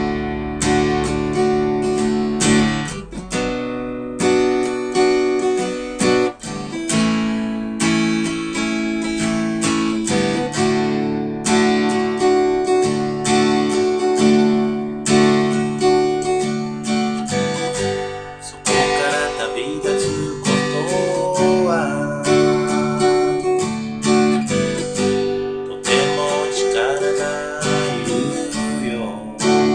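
Acoustic guitar strummed in steady chords, starting suddenly: the instrumental intro of a solo guitar accompaniment.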